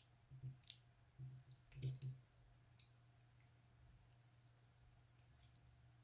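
Faint clicks and light knocks of a small precision screwdriver and its bits being handled: several in the first two seconds and one more near the end, over a low steady hum.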